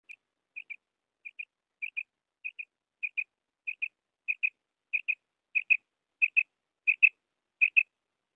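Quail (batair) calling: short, sharp, high whistled notes in pairs, repeated about every 0.6 seconds and growing steadily louder.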